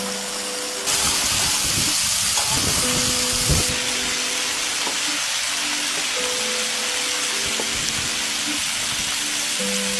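Breaded chicken deep-frying in a wok of hot oil: a steady sizzling hiss, much louder from about one second in to nearly four seconds. Background music with slow held notes plays under it.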